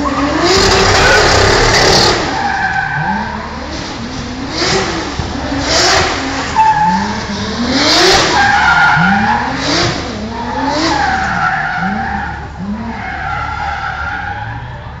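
Drift cars sliding sideways with loud, sustained tyre squeal, their engines revving up and dropping back again and again, roughly once a second.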